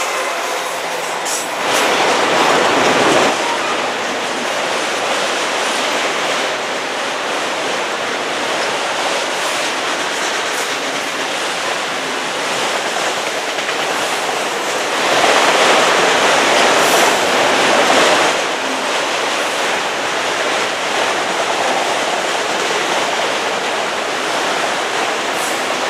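Autorack freight cars rolling past at speed: a steady rush of steel wheels on rail, swelling louder twice, about two seconds in and again around fifteen to eighteen seconds in.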